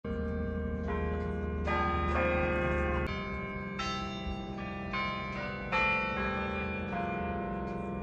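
Carillon bells playing a Christmas carol melody: one note after another, each ringing on and overlapping the next.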